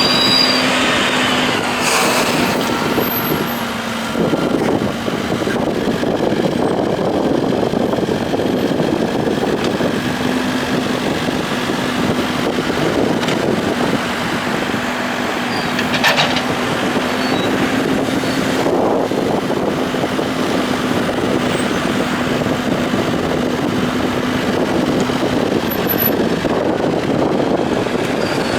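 Case 580 M backhoe loader's diesel engine running steadily while the machine works, with a few short knocks about two seconds in and twice past the middle.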